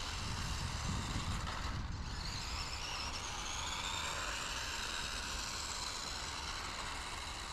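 WPL D32 RC kei truck's small electric motor and gears whining at full speed, the pitch rising and falling as it speeds up and turns, over wind rumble on the microphone.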